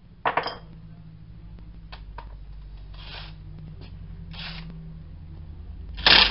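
Tools and metal parts handled on a workbench: a loud clunk about a quarter second in, then quieter scrapes and rustles. Near the end a 3/8-inch cordless impact wrench starts in a short, loud burst on the wiper arm's 17 mm nut.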